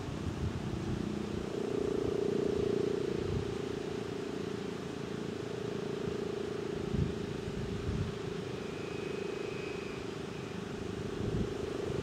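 Federal Signal STL-10 outdoor warning siren sounding a steady tone during a test, its pitch holding level while its loudness swells and fades slowly. Wind buffets the microphone now and then.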